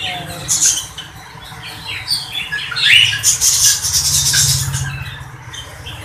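Parrots squawking in a row of harsh screeches, the loudest and longest about three seconds in.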